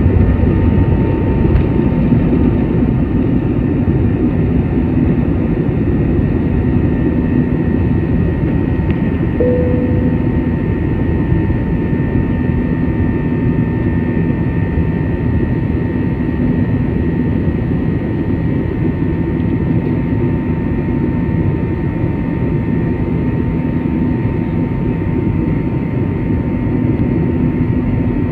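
Airliner jet engines at takeoff thrust heard inside the passenger cabin, through the end of the takeoff roll, liftoff and climb-out: a loud, steady rush of engine noise with a thin steady whine over it. A brief short tone sounds about nine seconds in.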